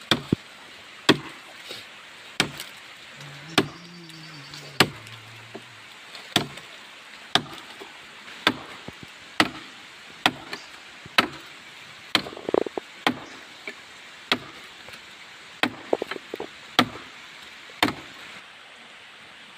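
Repeated heavy chopping blows into wood, about one a second, each a sharp crack. A few strokes come in quick double knocks.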